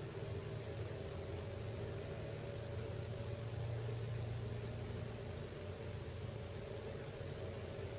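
Steady low mechanical hum, even throughout, with no creaks or knocks.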